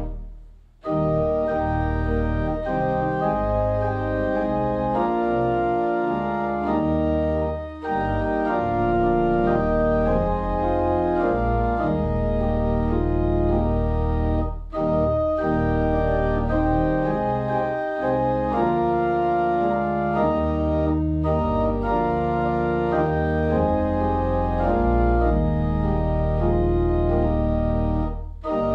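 Organ playing sustained chords, with brief breaks between phrases several times.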